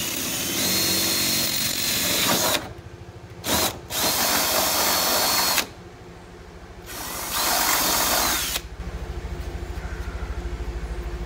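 Ryobi cordless drill drilling into a car's rear fender at the wheel arch, running in three bursts with a steady whine that winds up and down, and a brief trigger blip between the first two. A quieter low pulsing rumble follows near the end.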